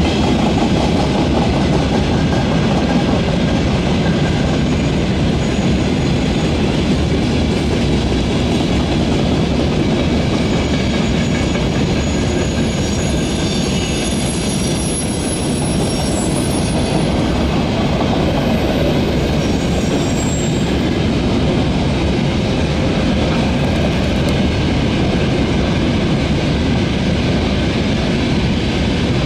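Freight train wagons rolling past with a steady loud rumble and the clatter of wheels over the rails. Faint high-pitched wheel squeal comes and goes in the middle.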